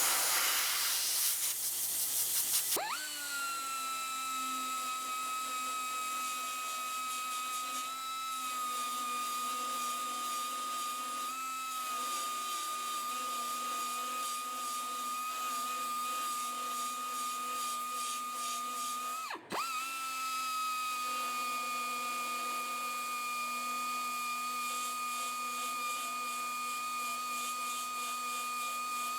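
A high-speed power grinder spinning up with a rising whine and then running at a steady high pitch. About 19 seconds in it stops briefly and spins back up. A loud hiss fills the first few seconds before the grinder starts.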